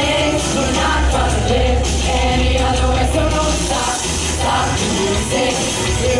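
A pop song performed live, with singing over a band backing and a steady bass line.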